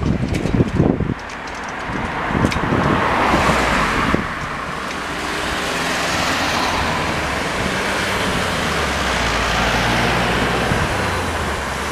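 Cars and a pickup truck driving past one after another, with engine and tyre noise on the road. The loudest vehicle passes close about four seconds in, and the traffic noise stays steady after that.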